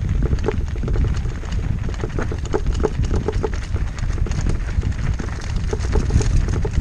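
Mountain bike rolling over a loose gravel road: tyres crunching on stones and the bike rattling with many quick small knocks over a steady low rumble.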